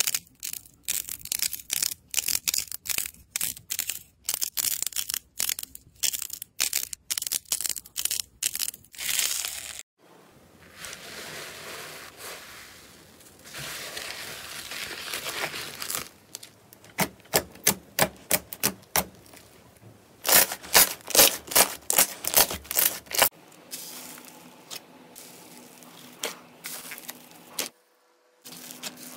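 Slime being handled in three short clips. First a rapid run of sharp, crunchy crackles as a sheet of pink clay balls is squeezed, stopping suddenly about ten seconds in; then a soft sticky rustle as glossy orange slime is stirred in a plastic bowl, breaking into quick bursts of wet clicks and pops. Near the end comes quieter handling of white slime packed with foam beads.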